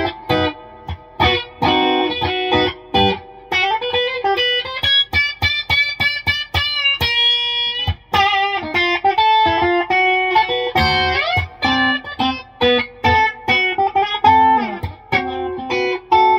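Telecaster-style electric guitar played solo in a country chicken-picking style: quick, short snapped notes mixed with a few held notes and rising string bends.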